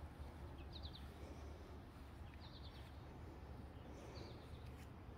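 A bird chirping faintly: three short phrases of a few quick high notes, about a second and a half apart, over a low steady outdoor rumble.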